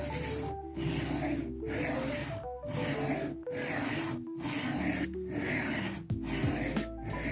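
A knife edge stroked freehand across a coarse 400-grit diamond sharpening plate, reprofiling the bevel: a gritty rasp about once a second, eight strokes in all. Background music with steady notes plays underneath.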